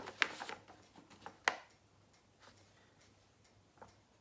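A sheet of paper handled and rustled, with two sharp clicks in the first second and a half, then quiet apart from a faint click near the end.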